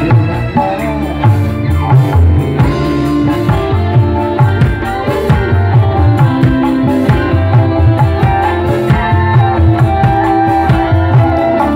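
Live dangdut band playing an instrumental passage without vocals: kendang hand drums beat out a fast, busy rhythm under held melody lines from keyboard and strings.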